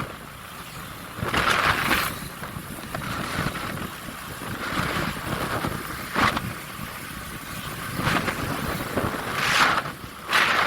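Vehicle noise with wind on the microphone, swelling and fading several times.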